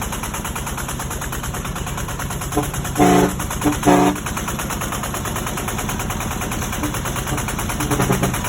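A công nông farm truck's single-cylinder diesel engine idles with a rapid, steady chugging. Its horn gives a short series of honks, one brief and several longer, between about two and a half and four seconds in.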